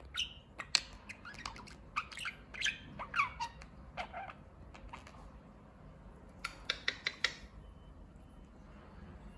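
Budgerigar chattering: a run of chirps, squawks and falling whistles mixed with sharp clicks. It ends in a quick cluster of clicks about three-quarters of the way through.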